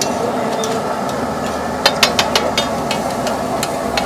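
Metal spatula scraping and clacking on a large flat iron tawa while tomato masala fries in peanut oil, over a steady noisy background. There is a quick run of sharp clacks about two seconds in, and a few more spaced out after that.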